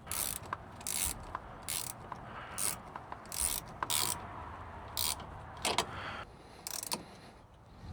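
Hand ratchet clicking in short strokes, roughly one a second, as a fuel-line hose clamp is tightened.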